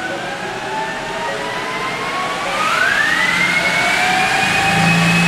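Electric drive whine and roller noise of a 2022 Ford F-150 Lightning accelerating on a four-wheel chassis dyno, the whine rising in pitch as the speed climbs, with a quick step up about halfway through. A low steady hum joins near the end.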